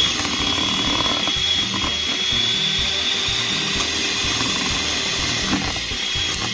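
Electric hand mixer running steadily with a high whine, its beaters churning through a bowl of cream mixture.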